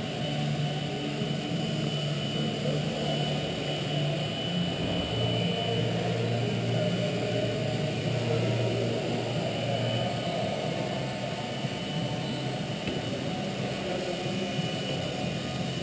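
Radio-controlled model helicopter in flight: a steady low drone from the spinning rotor, with a thin high whine over it.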